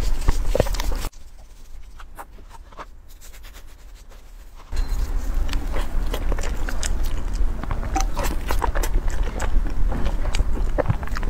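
Close-miked eating: biting into and chewing a soft chocolate crepe towel roll cake, with many sharp wet mouth clicks and smacks. About a second in, it goes much quieter for a few seconds, then comes back at full level.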